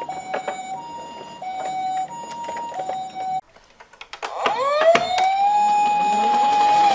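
Toy ambulance's electronic two-tone siren alternating high and low about every half second, with sharp clicks, cutting off suddenly about three and a half seconds in. After a short lull a second siren winds up in a rising wail and holds one steady tone.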